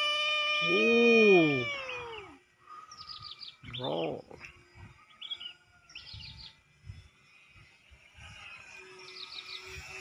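A loud, drawn-out cry for about the first two seconds, held on one pitch and then falling away. Small birds then chirp in short, quickly falling trills, several times over.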